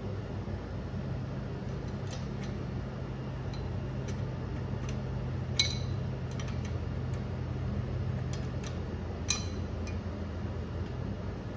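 Light metallic clicks and clinks of tools and parts worked under the car while the driveshaft is being removed, with two sharper clinks about midway and again some four seconds later, over a steady low hum.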